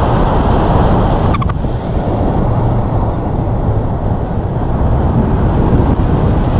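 Wind rushing over the microphone of a camera carried in flight on a tandem paraglider: a loud, steady rumbling rush, with a brief click about a second and a half in.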